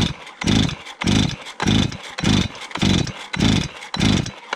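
Chainsaw starter rope pulled hard eight times in quick succession, under a second apart, the two-stroke engine cranking over with each pull but not catching. The saw is hard to start.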